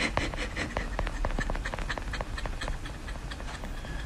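Husky puppy scrambling against a wire dog crate: quick irregular clicks and rattles of claws and metal bars against the crate's plastic tray. A faint high whine comes from the puppy near the end.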